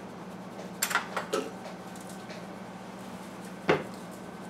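Kitchen handling noises: a plastic spice shaker and a fork clicking and knocking on a tiled counter. There is a cluster of sharp clicks about a second in and one louder knock near the end, over a steady low hum.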